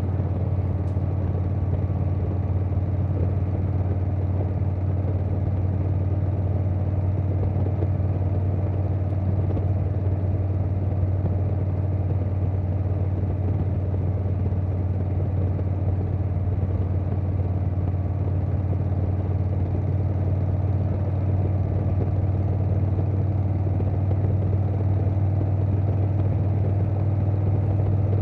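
2020 Harley-Davidson Softail Standard's Milwaukee-Eight V-twin running through a Vance & Hines Big Radius 2-2 exhaust, holding a steady engine speed with a deep, even rumble.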